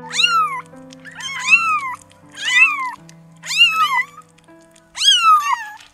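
Cat meowing repeatedly: five high calls about a second apart, each rising then falling in pitch, over background music.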